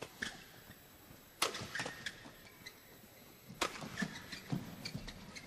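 Badminton rackets striking the shuttlecock in a fast doubles rally: a string of sharp cracks a fraction of a second to about two seconds apart, the loudest about a second and a half in and again a little past three and a half seconds.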